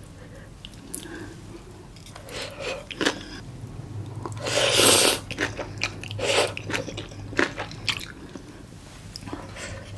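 Close-miked eating of spicy braised monkfish with bean sprouts: scattered wet mouth clicks and chewing, and about halfway through one loud slurp as a mouthful of saucy sprouts is sucked in.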